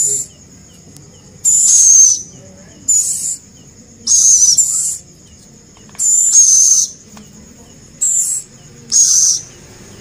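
Young scops owl (celepuk) giving a series of high-pitched calls, about six in a row, each about half a second long with short pauses between.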